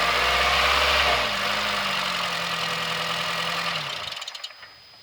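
A 2007 Honda Fit's four-cylinder engine running cold with a rattle, louder for about the first second, then stopping about four seconds in. The rattle is a loose, rusted heat shield on the catalytic converter.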